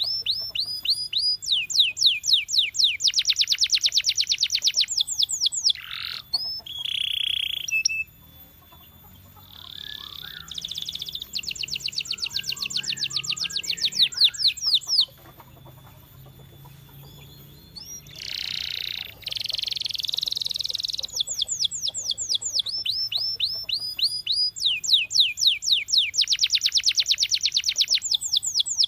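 Canary singing: several phrases of fast, high-pitched trills made of rapidly repeated falling notes, broken by two short, quieter pauses.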